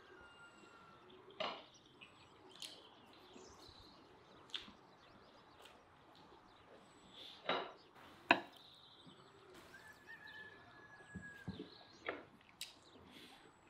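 Quiet eating sounds: forks and knives clicking and scraping on ceramic plates with some chewing, the two sharpest clinks a little under a second apart past the middle. Faint bird calls in the background.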